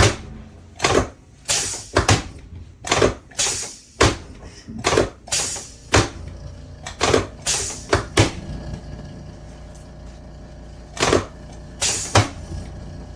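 A run of sharp clacks, about two a second for roughly eight seconds, then a pause and three more near the end.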